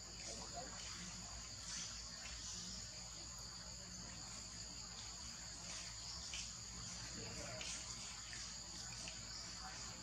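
Steady, high-pitched insect chorus of crickets or cicadas droning without a break, with a few faint ticks over it.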